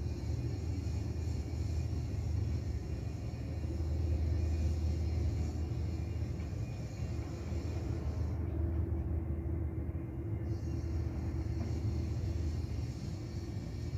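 Steady low rumble of distant city traffic on the expressway far below.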